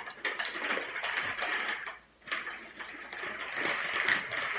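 Butcher paper crinkling and rustling as a wrapped bundle is pulled open and spread flat. It comes in two stretches with a short pause about two seconds in.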